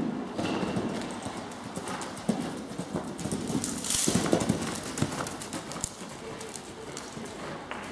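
Horse's hooves striking soft indoor-arena footing as it takes off over a jump, lands and canters on, in uneven dull thuds. There is a short, loud hiss about four seconds in.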